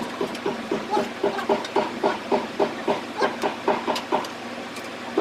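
Hand ratchet wrench worked in quick back-and-forth strokes on a bolt, about four clicks a second, stopping about four seconds in.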